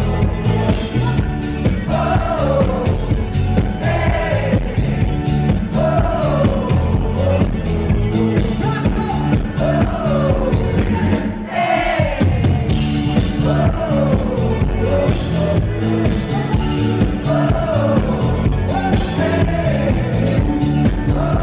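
Live rock band playing loudly: a male lead singer over guitars, bass and drums with a steady beat. The band drops out briefly about twelve seconds in.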